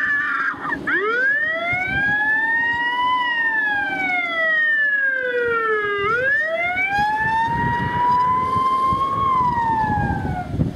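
Wailing fire-engine siren, the sound effect of a model village's miniature fire-engine scene. Starting about a second in, it rises slowly, falls for about three seconds, then rises again and falls away near the end.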